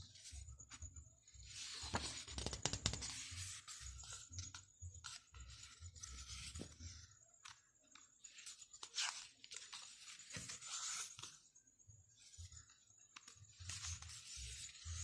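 Packaging being torn open and handled, with irregular bursts of tearing, crinkling and rustling that are loudest about two seconds in.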